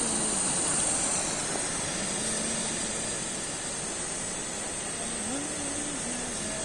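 Steady hiss of a small LPG cylinder camping stove's burner under a pot of boiling rice, with a thin, high, constant hiss above it.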